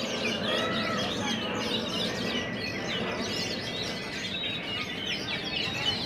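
Many oriental magpie-robins (kacer) singing at once from contest cages: a dense, overlapping chorus of quick whistles and chirps, with a low background hubbub beneath.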